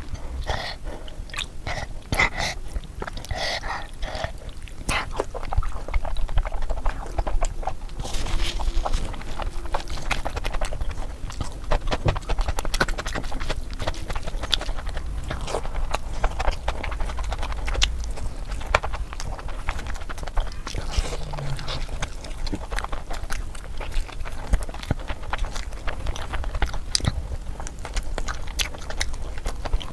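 Close-up chewing and eating sounds of someone eating mutton fat curry with luchi: a steady run of wet mouth clicks and smacks.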